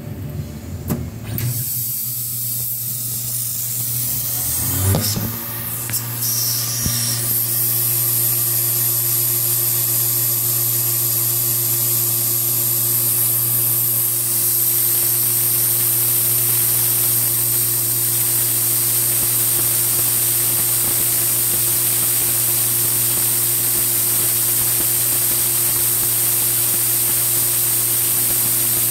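Tormach PCNC 1100 CNC mill engraving copper: a steady machine hum under a loud, even spray hiss from the nozzle aimed at the cutter. The hiss builds over the first several seconds, then holds steady.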